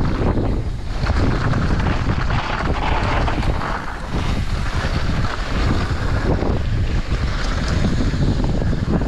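Wind buffeting the microphone of a mountain biker's action camera at speed, over the rumble and clatter of the bike's tyres and frame on a dirt bike-park trail. The rush is continuous and loud, heaviest in the low end, with irregular knocks.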